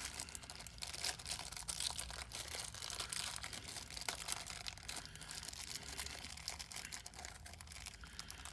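Thin plastic bag crinkling and rustling as fingers work it open, with many small crackles, over a low steady hum.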